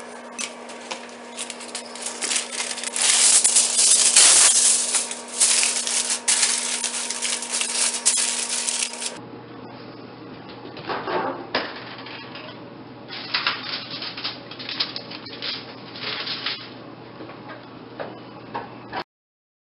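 Aluminium foil crinkling loudly as it is pressed down over a disposable foil pan. After a cut come lighter crinkles and metal clatters as the covered pan goes onto the oven rack. A low steady hum runs underneath.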